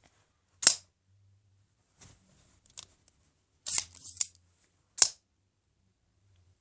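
Chinese replica Microtech Halo V out-the-front automatic knife being worked by hand, making sharp metallic snaps and clicks. The loudest snaps come just under a second in and about five seconds in, with quieter clicks between them.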